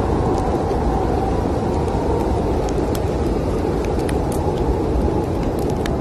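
Steady low roar of snowstorm wind, with a wood fire crackling over it in scattered sharp pops.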